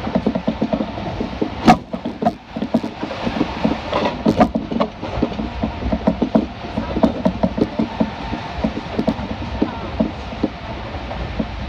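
Kintetsu electric train running, heard from inside the passenger car: wheels clattering over the rail joints and the car body rattling, with sharper clicks about two and four seconds in.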